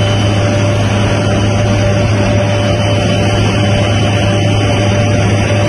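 Helicopter in flight heard from inside the cabin: a loud, steady low drone from the rotor and engines, with a steady whine above it.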